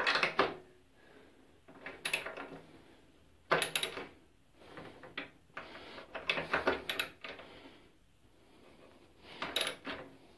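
A nut and bolt being tightened by hand with a screwdriver and nut driver through the bandsaw table: several short bursts of metal clicking and scraping with pauses between.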